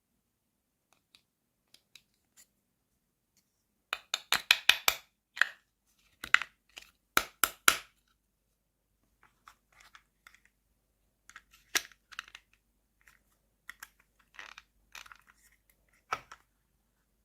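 Small plastic toy pieces and their packaging handled close to the microphone: a rapid run of sharp clicks and rattles, more bursts of clicking and rustling, and a single sharp click near the end, with quiet gaps between.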